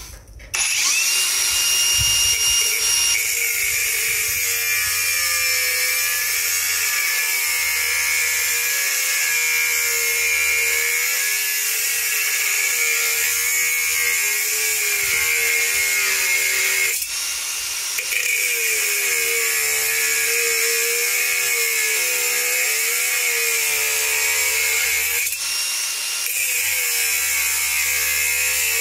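INGCO 115 mm cordless brushless angle grinder starting about half a second in, then cutting under light pressure: a loud, steady grinding hiss over a motor pitch that wavers as the load changes. The cut briefly eases off twice, around the middle and near the end.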